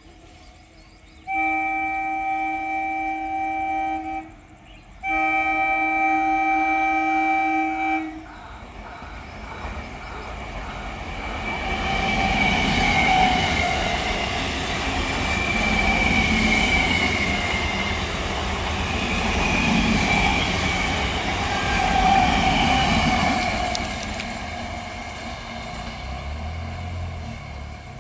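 Electric multiple-unit local train sounding two long, steady horn blasts of about three seconds each. The train then runs past with a rumble and rail clatter that swells and fades, with a wavering high squeal over it.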